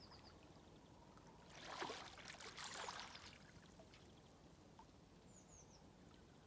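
Quiet shoreline with a brief wash of small waves against rocks about two seconds in. Three faint, quick, high chirps from a small bird follow about five seconds in.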